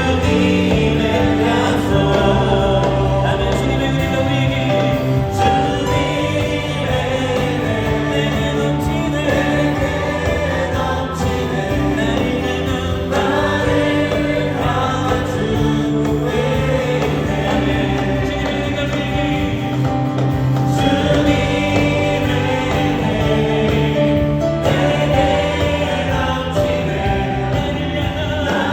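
Contemporary worship song performed by a live praise band of keyboard, electric guitar, bass guitar and drums, with a group of singers singing together.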